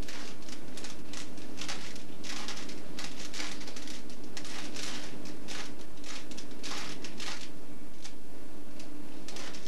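Plastic Rubik's cube being twisted quickly by hand: irregular runs of clicking, scraping layer turns with short pauses between them, over a steady low hum.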